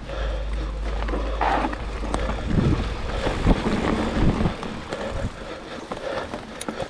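Mountain bike being ridden over a rough trail: wind buffeting the microphone, tyres rolling over the ground, and the bike knocking and rattling over bumps at irregular moments.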